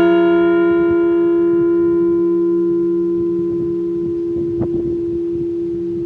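Liberty Bell replica ringing on after a single strike, its tone slowly dying away. The higher overtones fade out over the first few seconds while the low hum carries on.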